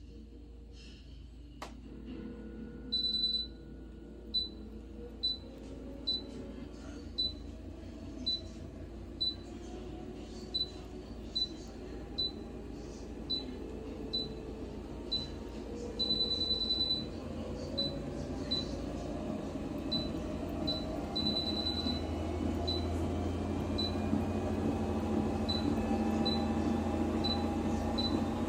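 Goplus 2.25 HP folding electric treadmill running: its console beeps about once a second, with a few longer beeps, while the motor and belt whine rises slowly in pitch and grows louder as the belt speeds up.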